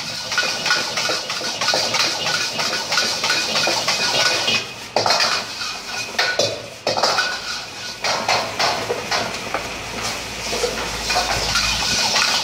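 A metal ladle and spatula clanking and scraping against a wok as noodles are tossed and stir-fried, in quick irregular strikes. Underneath is a steady hiss from the hot wok.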